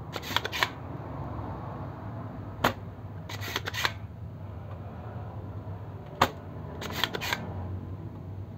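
Spring-loaded desoldering pump (solder sucker) being cocked and fired to suck molten solder off an IC's pins on a circuit board one by one: several sharp plastic snaps and clicks, some in quick clusters.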